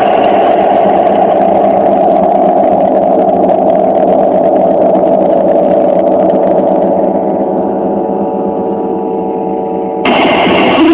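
A long string instrument sounding a sustained drone thick with overtones. The higher overtones fade away over the last few seconds, and about ten seconds in the string is struck again, bringing back a brighter tone.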